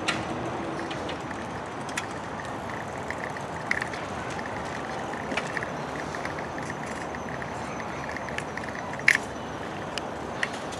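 Steady outdoor background noise along a park path, broken by scattered sharp clicks, the loudest near the end, and a quick run of light ticking from about three to nine seconds in.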